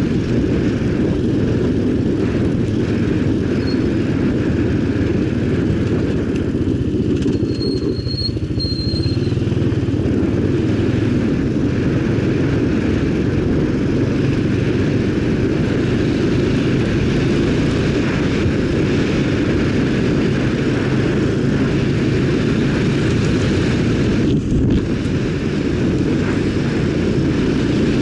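ATV engine running steadily while riding, with a brief dip in the noise near the end.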